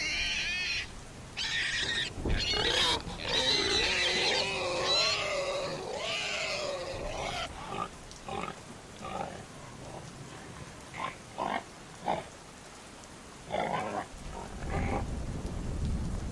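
Animal calls: a long run of wavering, changing-pitch calls for the first seven seconds or so, then a string of short separate calls.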